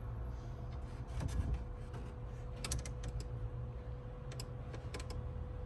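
British Shorthair mother cat purring with a low, steady rumble while a kitten nurses, with scattered small clicks, a quick cluster of them about two and a half seconds in.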